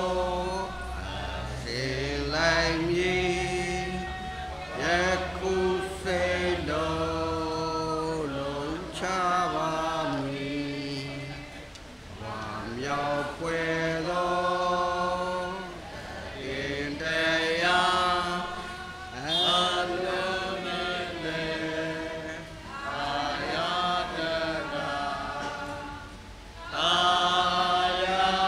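A church congregation singing a slow hymn together, voices holding long notes in phrases with short breaks between them.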